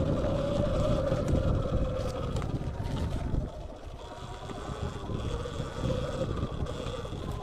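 Sur-Ron Light Bee X electric dirt bike ridden fast over a bumpy dirt trail: a steady whine from its motor and drivetrain over wind rushing on the microphone and the rumble of the bumps. The whine and rush drop off about halfway through as the bike slows, and the whine returns faintly near the end.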